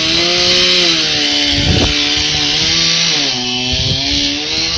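Chainsaw running hard as it cuts into a tree trunk, its engine pitch dipping and wavering as the chain loads up in the cut, with a bigger dip about three and a half seconds in.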